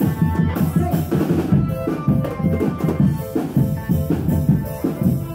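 Live marching drumband playing a busy, steady rhythm on marching drums, with bass-drum beats and sharp snare and rim hits.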